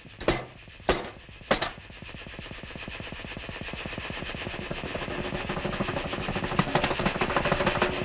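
Three sharp bangs about half a second apart, then a fast rattling that builds steadily louder, like rapid gunfire in a cartoon soundtrack.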